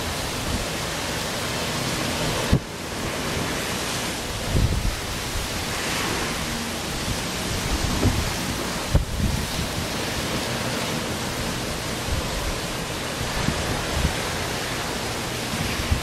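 Steady wind rushing over the microphone, with a few low buffeting thumps from gusts.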